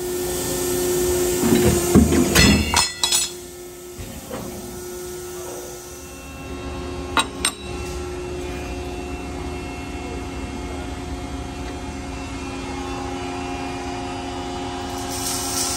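10-foot CNC shear cutting 1/4-inch metal plate: loud metallic clanks and clatter about two to three seconds in as the blade shears and the cut piece drops. A steady machine hum runs underneath, and two short metallic clinks come a few seconds later.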